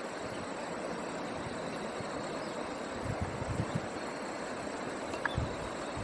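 Outdoor rural ambience: a steady, even hiss with a few soft low bumps, about three seconds in and again near the end.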